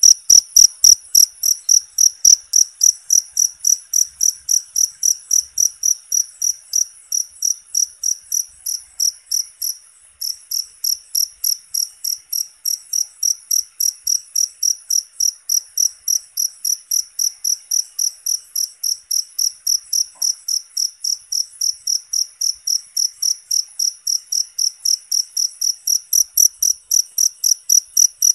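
A cricket chirping steadily: a high, even chirp repeated about three to four times a second, with a short break about ten seconds in.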